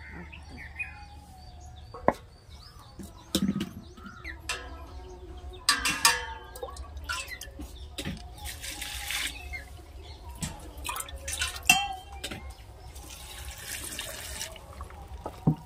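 Water poured from a steel tumbler into a wet grinder's steel drum over coconut pieces, dal and green chillies, twice, amid clinks and knocks of steel vessels.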